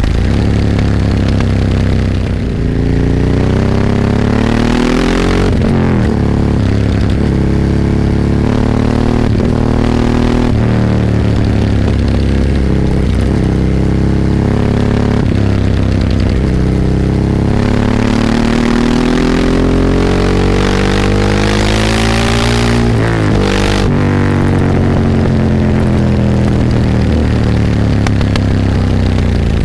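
Ducati 998's L-twin engine under hard acceleration, its note climbing and then dropping sharply several times as it shifts up through the gears. The longest pull comes near the middle, with a rush of hiss at its peak.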